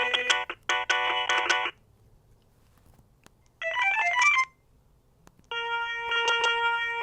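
Alcatel OT-E159a mobile phone playing its built-in polyphonic ringtones one after another. One melody stops a couple of seconds in, a short run of quick notes plays about halfway through, and a new tune with held chords starts near the end. Brief pauses with faint clicks separate them.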